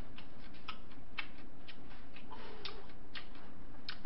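Chewing: soft, irregular mouth clicks a few tenths of a second apart, over a steady background hiss.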